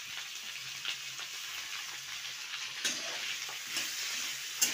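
Chopped vegetables (carrot, cauliflower, capsicum, onion) sizzling in hot oil in a metal kadai. A spatula stirs them, with a few sharp scrapes against the pan in the second half.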